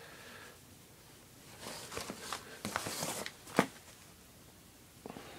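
Faint rustling and handling noises with a few sharp clicks, the loudest click a little past halfway.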